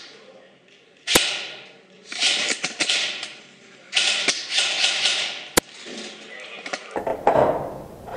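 Spring-powered bolt-action airsoft sniper rifle (Snow Wolf M24) firing: two sharp cracks, about a second in and again past five seconds, with bursts of rustling, rattling noise between them.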